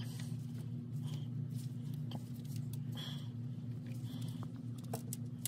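Faint clicks and rustles of gloved hands handling the rubber oil-cooler hoses and their metal fittings at a transmission, over a steady low hum.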